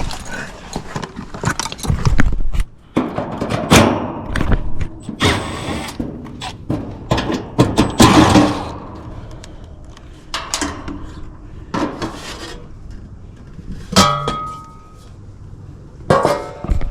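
Irregular knocks, thuds and metal clinks from handling an outdoor AC condenser and tools while the unit is switched off, with one sharp ringing metal clink about 14 seconds in.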